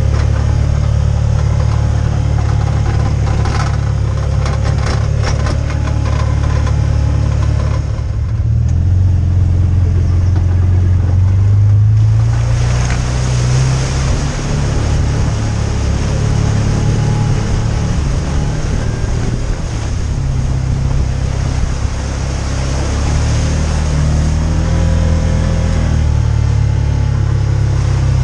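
Side-by-side UTV engine running as it drives, the engine note climbing between about eight and twelve seconds in. A few rattling clicks come a few seconds in, and a steady hiss joins from about twelve seconds in.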